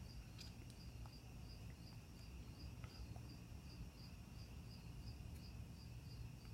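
Hampton Bay Landmark ceiling fan running slowly on low speed with a bad capacitor, giving a faint steady low hum. A faint high chirp repeats about three times a second over it.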